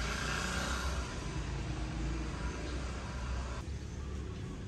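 Outdoor street ambience: road traffic with a steady low rumble and noisy hiss. The background changes abruptly about three-quarters of the way through.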